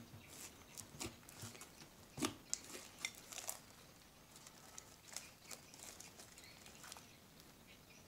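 Slime with small foam beads squelching and popping as it is pressed and kneaded by hand, a run of irregular sharp little clicks. After about four seconds the pops thin out and grow fainter as the slime is pulled and stretched.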